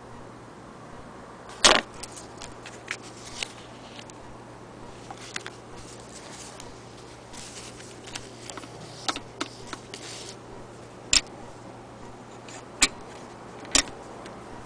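Handling noises: irregular clicks and knocks with short rustles as the stitched fabric is moved about over the sewing machine, the loudest knock about two seconds in. A faint steady hum lies underneath.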